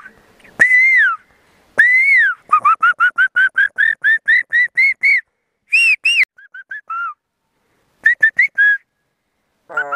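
A man whistling by mouth in imitation of a bird's call: a few drawn-out arching notes, then a quick run of about a dozen short rising notes, then a few scattered chirps near the end.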